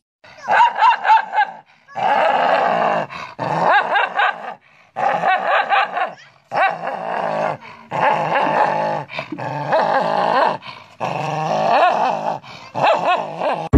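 A dog growling and barking aggressively, with bared teeth, in repeated bouts of about a second separated by short breaks, snarling at its own reflection as if at a rival dog.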